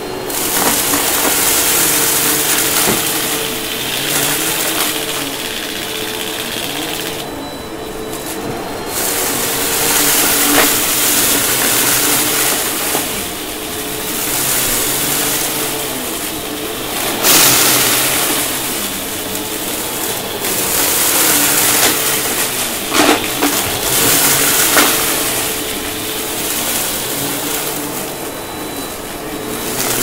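Upright vacuum cleaner running on carpet: a steady motor hum under a loud rush of suction air that swells and fades as it is pushed back and forth. It is picking up a pile of loose debris, with a few sharp clicks about three-quarters of the way through.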